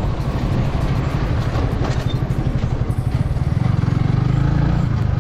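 Sport motorcycle's engine running at low road speed, a steady pulsing exhaust note that gets louder about three and a half seconds in as the throttle opens.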